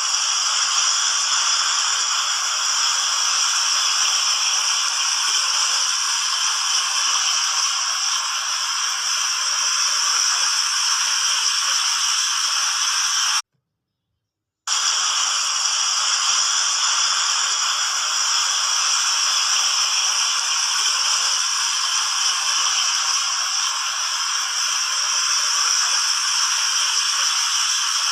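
Water fountain jets spraying and splashing down in a steady rush. It cuts out for about a second midway and then resumes the same.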